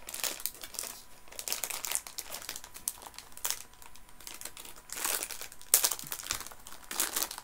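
Plastic sweet packet crinkling in irregular bursts as it is handled and opened, loudest around five seconds in.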